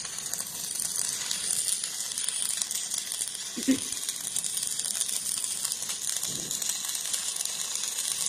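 Stick (MMA) welding arc burning a 4 mm electrode: a steady, even crackling sizzle. A brief louder blip about three and a half seconds in.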